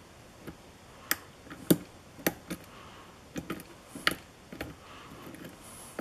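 A steel lock pick working the pins of a brass pin-tumbler lock under tension, with irregular light metallic clicks and ticks as the pins are lifted and set, the loudest about a second and a half in.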